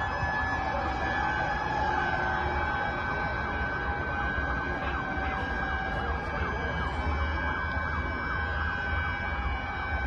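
Several emergency sirens wailing at once, their rising and falling sweeps overlapping with steady held tones, over a low rumble.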